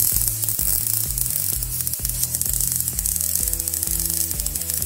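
A MIG welder's arc crackling steadily as steel is welded, under background music with a steady bass line.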